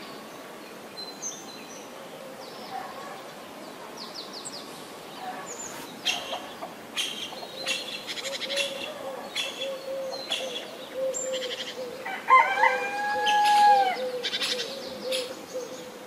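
Small birds chirping repeatedly, and a rooster crowing once about twelve seconds in, with a long call that drops in pitch at its end.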